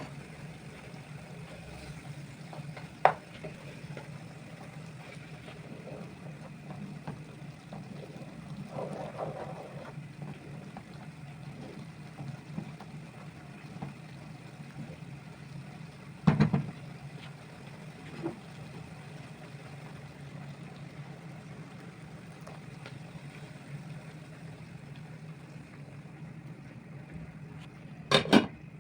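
A steady low hum with a few sharp knocks and clatters of objects being set down, the loudest about halfway through and near the end.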